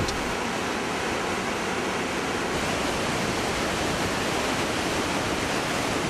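The roar of the Iguaçu Falls: a steady, even rush of water plunging over the cliffs into the gorge.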